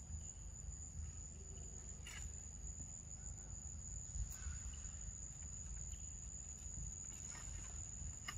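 Insects singing on one steady, unbroken high tone, over a low rumble, with a few faint short clicks scattered through.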